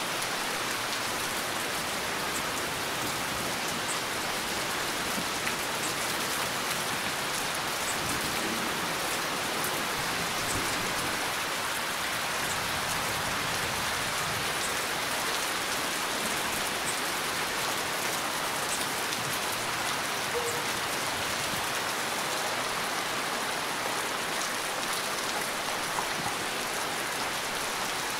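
Heavy rain falling steadily: an even hiss with scattered small drop ticks.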